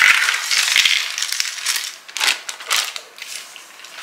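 Cardboard jigsaw puzzle pieces clattering and rustling onto a table as they are tipped out, densest in about the first second, then a few separate short clatters as the pile is spread by hand.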